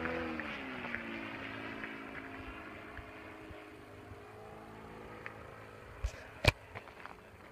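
Gas engine of a 111-inch Aeroplus Edge RC aerobatic plane with canister mufflers, flying overhead: its note rises briefly, then falls in pitch and fades. Two sharp knocks about six seconds in, the second loud.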